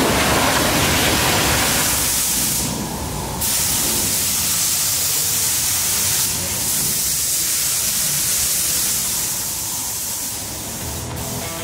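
Steady hissing spray: first a pressure-washer jet blasting an excavator bucket, then a paint spray gun hissing as it coats steel. The hiss changes character a few times.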